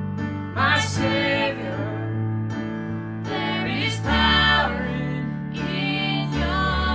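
Contemporary worship song: a voice singing over instrumental accompaniment with sustained bass notes.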